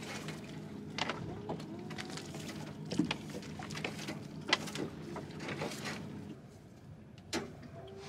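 Sharp knocks and rattles of a wire crab pot and its rope being handled on a boat deck, over a steady engine hum that stops about six seconds in.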